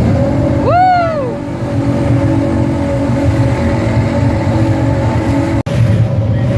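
Motor running steadily, with a brief high whine that rises and falls about a second in. The sound cuts out for an instant near the end.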